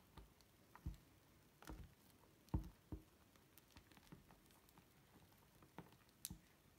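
Silicone spatula stirring thick slime in a glass bowl: faint, scattered soft squishes and light taps, the loudest about two and a half seconds in.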